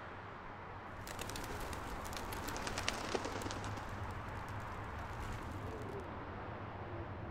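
A flock of pigeons taking off, their wings flapping in a rapid clatter from about a second in until about six seconds in. A pigeon coos faintly near the end, over a steady low rumble.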